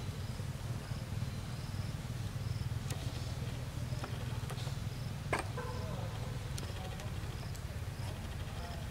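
An insect chirping in short, evenly spaced high calls about twice a second over a steady low rumble, with one sharp click about five seconds in.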